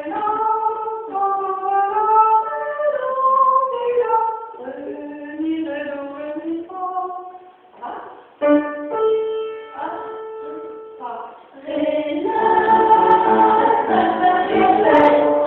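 Two girls singing a piece together as a duet, held notes moving from pitch to pitch, with a short break about eight seconds in. From about twelve seconds on the singing gets fuller and louder.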